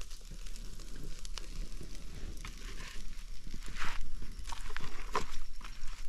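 Charcoal grill crackling and sizzling under peppers and onions on the grate, irregular crackles and clicks, a few louder ones near the end, over a steady low rumble.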